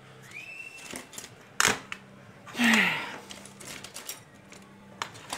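Handling noise from an opened plug-in power supply and its DC cable being moved over a cutting mat: one sharp click about a second and a half in, then a few faint taps. A short sigh comes a little past halfway.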